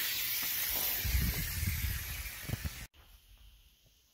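A steady hiss with a few low thumps in its second half, cutting off abruptly about three seconds in.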